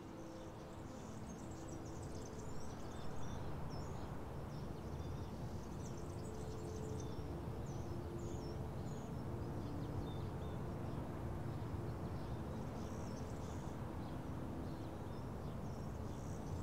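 Outdoor ambience: small birds chirping repeatedly over a steady low background rumble.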